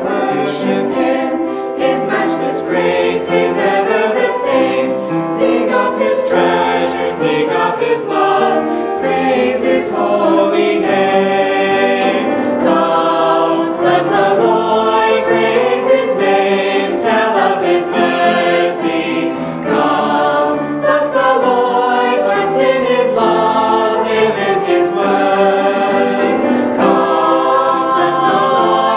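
Mixed choir of young men's and women's voices singing a hymn, with sustained notes and no break.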